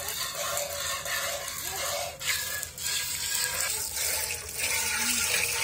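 Milk squirting from hand-milked teats into a steel bucket part-full of milk: a steady, frothy, water-like hiss and splash of the streams.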